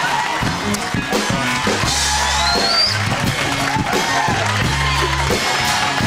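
A live studio band plays upbeat walk-on music, with drums and a steady bass line.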